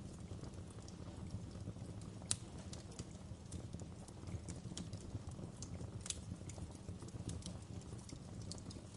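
Wood fire burning in a fireplace, crackling with irregular sharp pops over a low steady rumble; the loudest pops come about two seconds in and again about six seconds in.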